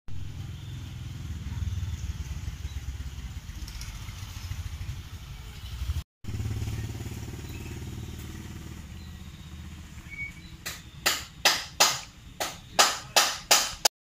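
Motorcycle engine idling with a steady low rumble, which cuts out briefly about six seconds in. Near the end comes a run of about ten sharp clicks or knocks, two or three a second, louder than the engine.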